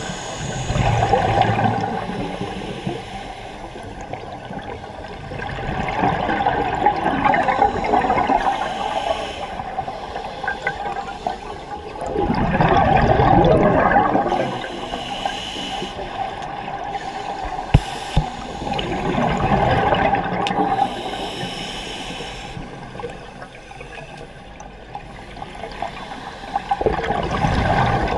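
Scuba regulator exhalations heard underwater: bursts of bubbling come about every six to seven seconds, with quieter stretches between. A single sharp click sounds about two-thirds of the way through.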